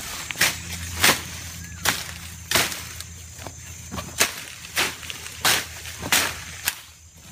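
A digging tool striking soil again and again while taro is dug up, about ten sharp strokes at an even pace of a little more than one a second.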